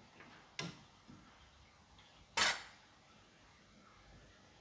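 Metal ladle knocking against a stainless-steel cooking pot twice: a light clink about half a second in, then a louder clank about two and a half seconds in.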